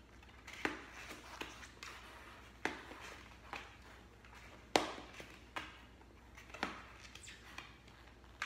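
Bicycle tire being worked around its rim by hand: irregular sharp snaps and clicks of the rubber bead and rim, with soft rubbing between them. The loudest snap comes near the middle.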